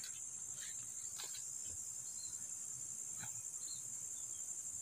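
Steady high-pitched trill of insects, likely crickets, in a continuous chorus, with a few faint brief rustles.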